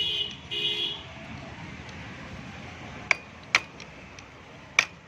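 Three sharp metallic clinks of a steel tool against the engine's bent locking plate on the camshaft-sprocket bolts as it is being straightened, over a steady background hum. Two short high-pitched tones sound in the first second.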